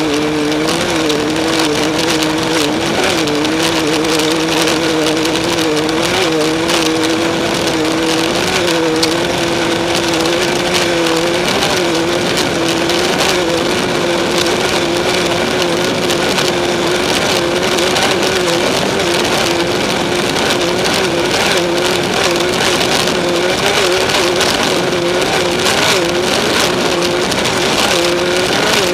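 Off-road race vehicle's engine running hard at nearly constant high revs, its pitch wavering only slightly, over loud wind and rough-terrain chassis noise.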